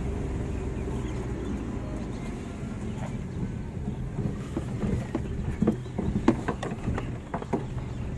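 Inside a moving car's cabin: steady low engine and road rumble. About halfway through comes a run of irregular knocks and clicks lasting a few seconds.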